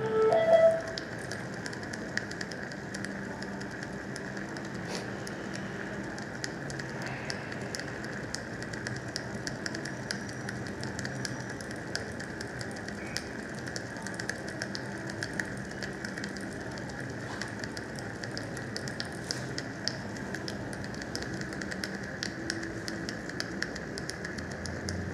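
Surgical suction hissing steadily with a constant scatter of small crackles and clicks as it draws fluid from the surgical site. A short, louder pitched sound comes right at the start.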